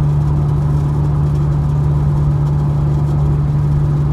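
Car driving along a highway, heard from inside the cabin: a steady drone of engine and road noise with a constant low hum.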